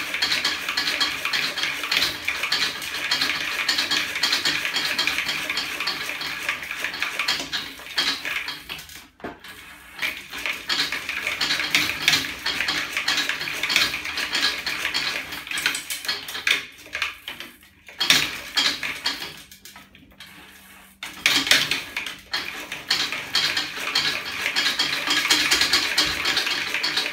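Homemade aluminium lever-and-magnet drive on a bicycle's rear wheel running, its metal arms, joints and chain clattering rapidly. The clatter drops away briefly about nine seconds in and again between about sixteen and twenty-one seconds, then resumes.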